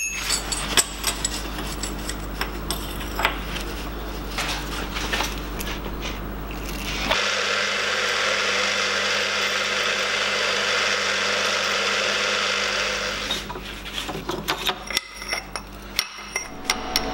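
Drill press boring through a metal plate with a titanium-coated twist bit: metal clatter and scraping at first, then a loud, even cutting noise from about seven seconds in for roughly six seconds, followed by more scraping and clinking.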